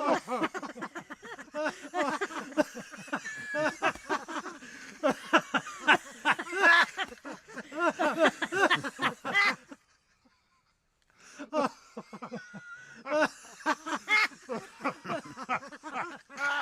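Laughter in quick runs of short pitched "ha" bursts, breaking off into about a second and a half of silence partway through before the laughing starts again.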